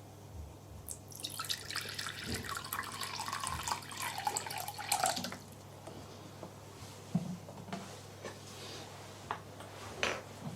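Water running or pouring for about four seconds, then stopping, followed by a few faint clicks and knocks.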